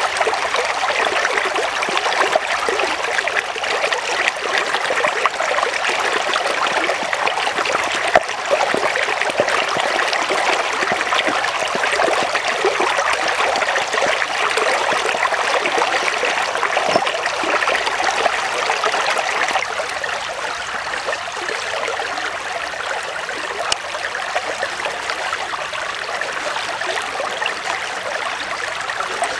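Steady rush of a flowing stream, with a few sharp knocks from a cleaver meeting a wooden chopping board as raw pork is sliced.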